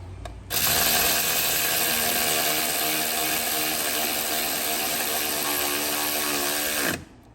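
Power tool running steadily for about six seconds while driving in a fastener, then winding down with a brief drop in pitch and stopping.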